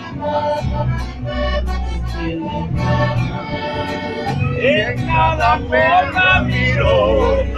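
Live acoustic music: a guitar strummed in a steady rhythm under held melody notes, with a man's voice singing from about five seconds in.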